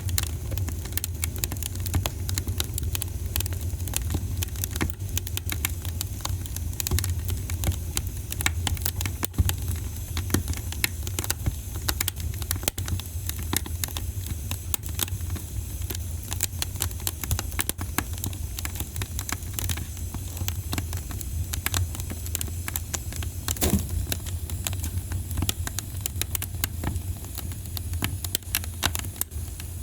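Wood fire in a fireplace crackling, with many sharp pops and snaps over a steady low rumble of the flames.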